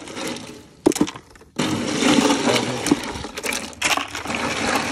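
Ice and cans rattling and crunching in a plastic cooler as a hand digs through it for drinks, with a few sharp clicks in the first second and then a dense, steady clatter.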